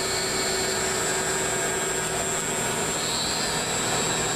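MotionMaster SB55X five-axis CNC router running steadily: a constant rushing machine noise with a steady high tone and a lower steady hum, no change in level.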